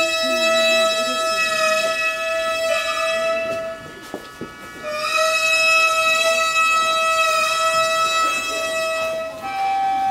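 Gagaku ceremonial music on a Japanese reed or flute wind instrument: a long held note, a breath-length break about four seconds in, then the same note held again, stepping up in pitch near the end.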